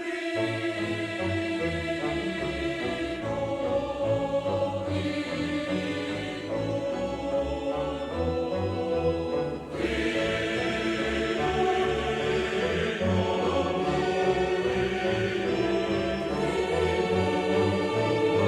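Background music with sustained choir-like voices over a pulsing low bass line, starting abruptly.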